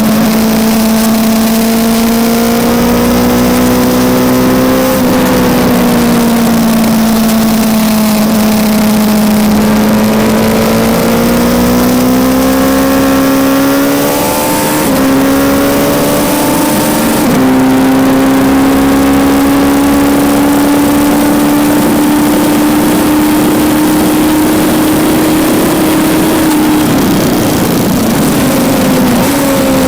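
Kawasaki Z900's inline-four engine at high revs on a race track, its pitch climbing steadily with a few brief breaks at gear changes, then dropping near the end as the bike slows. Wind rushes over the microphone throughout.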